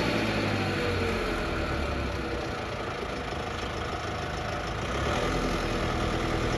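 Vermeer SC60TX stump grinder's engine running steadily; it falls back a little in the middle and picks up again about five seconds in.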